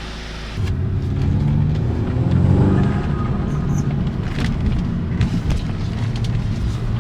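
Audi S3 under way with freshly fitted coil packs: engine and road noise, the engine pitch rising and peaking about two and a half seconds in, then holding fairly steady.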